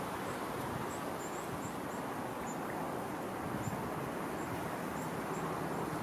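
Steady outdoor background noise, with faint, very high, short bird calls dotted through it about a dozen times.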